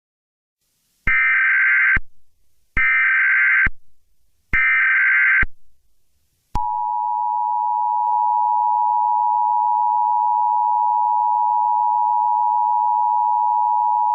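Emergency Alert System header: three bursts of warbling digital data tones, each about a second long, then from about halfway on the steady two-tone EAS attention signal. Together they announce an emergency alert message that is about to be read.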